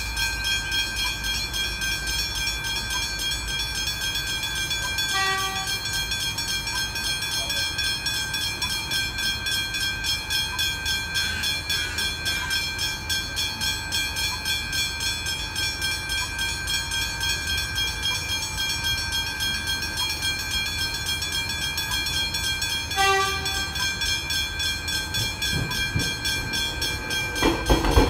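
Level crossing bells ringing rapidly and without a break, with two short horn blasts, one about five seconds in and one near the end. Near the end an X'Trapolis electric suburban train reaches the crossing and its rumble swells loudly.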